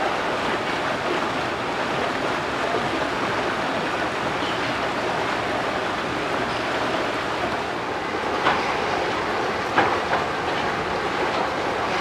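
Steady rush of flowing water in a rock-lined pond, with three short sharp ticks in the second half.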